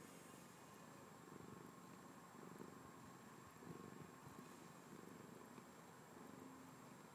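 Elderly domestic cat purring faintly close to the microphone, the purr swelling and fading with each breath about once a second.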